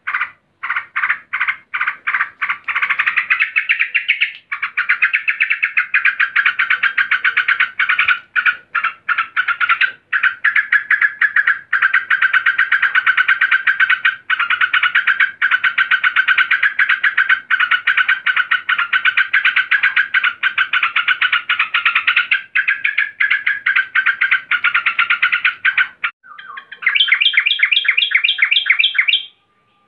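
Female yellow-vented bulbul giving its agitated call, the call used to draw a male, as a rapid chatter of notes. It comes in short bursts at first, runs almost unbroken for most of the time with a few brief breaks, then turns into a faster, higher trill of sharp notes near the end.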